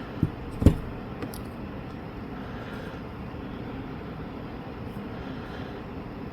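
A few light knocks and clicks from small tools and parts being handled during a phone repair, two within the first second (the second the loudest) and a smaller one a little later, over a steady room hum.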